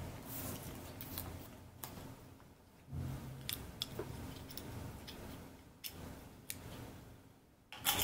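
Scattered light clicks and small knocks of hands handling a small MFRC522 RFID reader board and a plastic key fob, over a faint low hum, with the sharpest clicks near the end.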